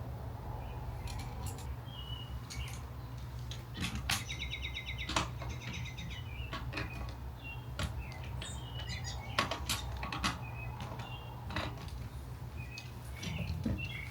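Scattered light metallic clicks and clinks as the mountain bike's front wheel is fitted and its axle nuts done up, with birds chirping and a fast trill about four seconds in, over a steady low hum.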